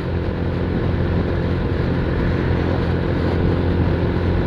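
Motor scooter engine running steadily at cruising speed on the road, an even drone with no change in pitch. The engine is freshly top-overhauled and fitted with a new exhaust.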